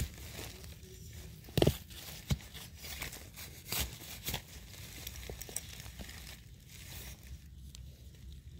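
Dry leaf litter and twigs crackling and rustling, with about five sharp snaps in the first four and a half seconds, then quieter rustling, as the forest floor is handled around termite mushrooms.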